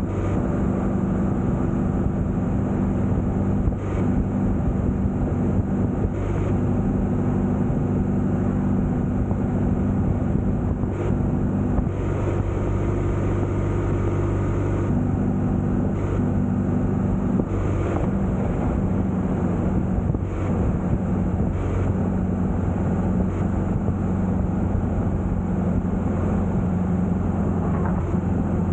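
Motorcycle engine running at a steady cruise on the open road, with wind and road noise; the engine note shifts briefly a couple of times, around twelve seconds in and again near eighteen seconds.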